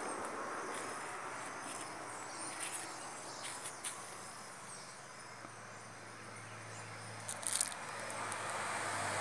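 Insects chirping as a steady high-pitched drone, with a few short sharp crackles, the loudest a little past halfway in, and a faint low hum in the second half.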